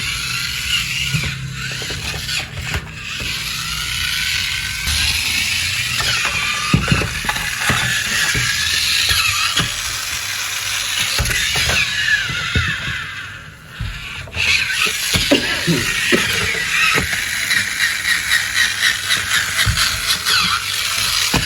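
Battery-powered toy's small motor and plastic gears running, with a steady whirring and many small clicks.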